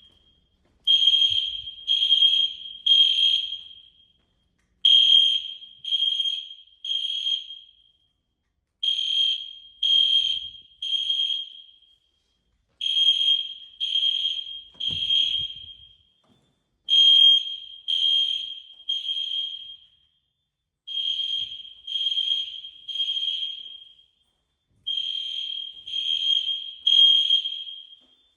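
Fire alarm sounding the temporal-three evacuation signal: three high-pitched beeps, a pause, then three more, repeating about every four seconds. The three-pulse pattern is the standard signal to evacuate the building.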